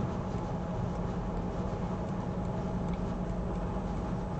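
Steady background hum and hiss of room noise, a constant low drone that does not change.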